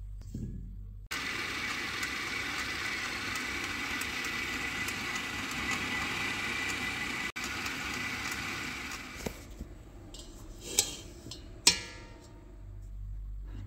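Food processor motor running steadily with a faint whine as it kneads bread dough, stopping about nine seconds in. Two sharp knocks follow near the end.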